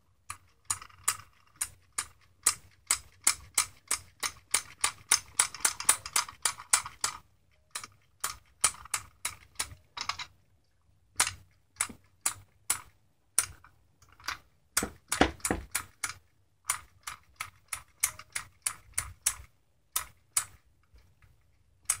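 Seatbelt retractor of a 2008 Mercedes GL450 clicking over and over as it is worked by hand, a few sharp clicks a second in runs with short pauses. The retractor is being adjusted to find the angle at which the repaired belt will retract and lock.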